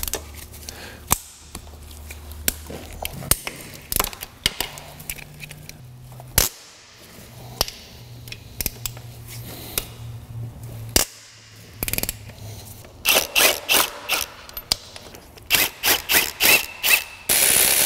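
Bolts being worked loose: scattered metal clicks and clanks of a hand wrench and socket. From about two-thirds of the way in come a string of short bursts from a cordless power tool, which then runs continuously near the end.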